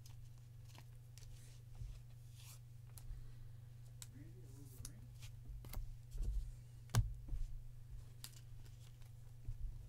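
Trading cards being handled at a table: soft scattered clicks, slides and taps of card stock, with one sharper knock about seven seconds in, over a steady low hum.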